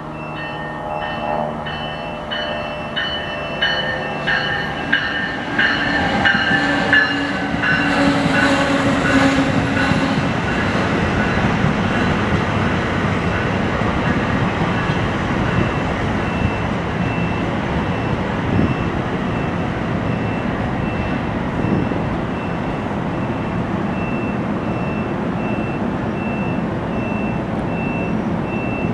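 NJ Transit multilevel commuter train, pushed by an ALP-46A electric locomotive, rolling into a station and slowing: wheels clicking regularly about twice a second over the rail joints, with several steady squealing tones, during the first ten seconds. It then settles into a steady rumble as the coaches roll slowly past.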